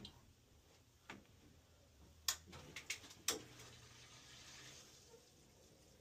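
Sharp clicks of a fingertip tapping the Weil-McLain EcoTec combi boiler's touchscreen control: one at the start, another about a second in, then a quick run of four a couple of seconds in, the loudest.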